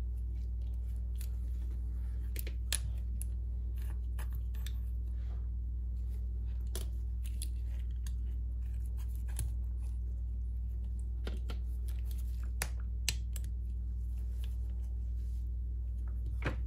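Small metal repair clamps clicking and tapping as they are handled and fitted onto the edges of a phone, to hold its glued back glass cover in place. A steady low hum runs underneath.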